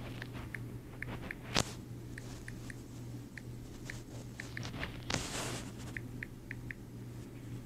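Tablet on-screen keyboard key sounds: short, high clicks at an irregular typing pace, one per letter tapped, over a steady low hum. A sharp knock comes about a second and a half in, and a brief rush of noise just after five seconds.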